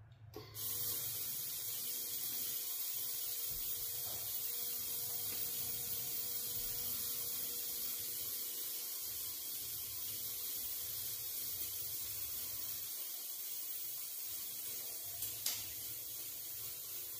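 Xlaserlab X1 handheld laser welder fusing saw-blade steel, using argon-CO2 shielding gas: a steady hiss that starts about half a second in and runs until it cuts off at the end, with one sharp pop about fifteen seconds in.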